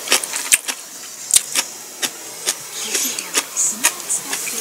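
Close-up chewing: wet mouth clicks and smacks as food is chewed, several short sharp clicks a second at an uneven pace.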